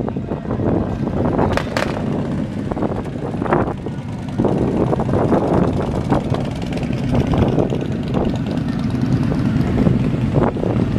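Vehicles driving slowly past one after another, their engines and exhausts running: a Ford Mustang convertible, then two cruiser motorcycles including a touring bike, then an early-1970s Oldsmobile. The engine sound gets fuller about four seconds in, as the motorcycles come by.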